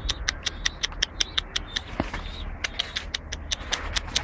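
Rapid series of short, sharp high clicks, about six or seven a second, with a faint high chirp now and then.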